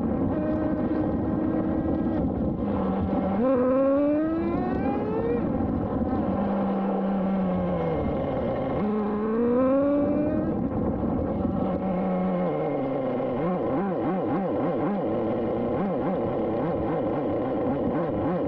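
Traxxas Jato 3.3's small two-stroke nitro engine running. It is revved up twice, pitch climbing for a couple of seconds about three and nine seconds in, and falls back to a lower steady note in between. After about twelve seconds it runs with a wavering pitch.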